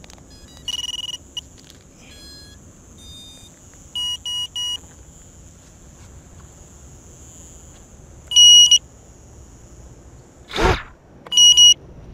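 HappyModel Larva X HD micro quadcopter beeping as its battery is connected: a run of electronic startup tones, three quick beeps about four seconds in, a single beep later and two more near the end, over a faint steady high whine. A brief rushing burst comes shortly before the last beeps.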